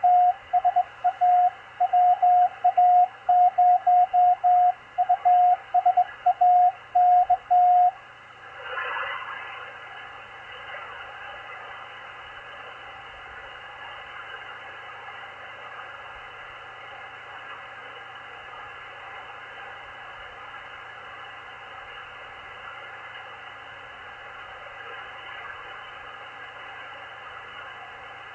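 Morse code (CW) on the 20-metre amateur band heard through a Malachite DSP SDR receiver: a single steady beep keyed on and off in dots and dashes, stopping about eight seconds in. After a short swell of noise, only the receiver's band hiss is left.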